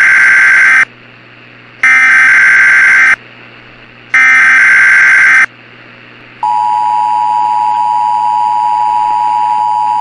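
Emergency Alert System SAME header: three harsh bursts of digital data tones, each about a second long, marking the start of an emergency alert. From about six and a half seconds in, the steady two-tone EAS attention signal sounds.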